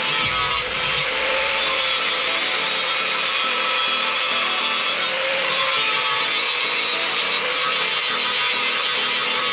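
A knife handle being sanded smooth: a continuous, even rasping of abrasive rubbing on the handle.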